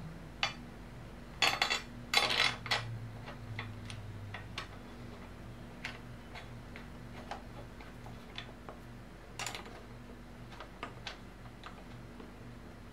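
Small metal clinks and clicks from handguard mounting hardware being fitted into a motorcycle's handlebar end: a cluster of louder clinks about one and a half to three seconds in, then scattered light ticks as the bolt is threaded in and turned with an Allen key.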